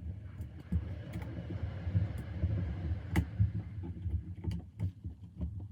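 Small screws being driven by hand into plastic model-kit parts, a gritty scraping of the screw threads cutting in, with handling knocks of the parts and one sharp click about three seconds in.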